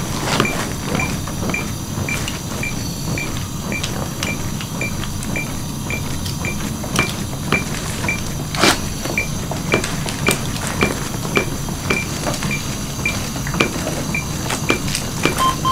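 CPR metronome beeping steadily at a bit under two beeps a second, setting the pace for chest compressions, with scattered knocks and rustling from the compressions and the handling of equipment. A single lower beep sounds just before the end.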